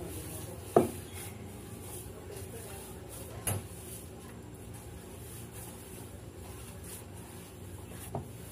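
Hands kneading and pressing a stiff dough in a glass bowl, with three knocks of the bowl against the table: a sharp one about a second in, a lighter one around three and a half seconds, and a faint one near the end.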